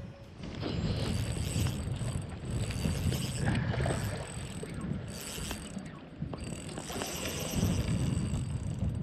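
A spinning reel, the angler's Shimano Vanquish 1000, is being cranked in spells as a hooked trout is played; its gears whir and stop several times. Wind rumbles on the microphone underneath.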